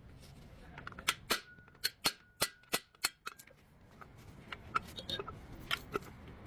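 Repeated sharp metallic clicks and knocks at irregular intervals, bunched closely in the first half and more spread out later, over a low steady hum.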